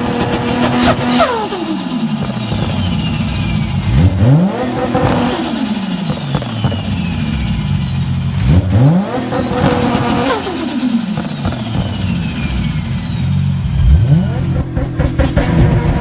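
Turbocharged engine of a Nissan Skyline GT-R R34 being blipped, revving up about every four to five seconds; each time the throttle closes the turbo flutters and a high turbo whistle falls away in pitch.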